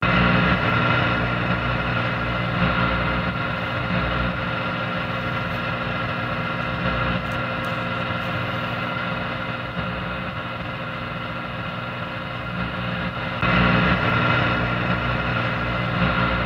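Radio static: a steady hiss with a buzzing hum running through it, jumping louder about 13 seconds in.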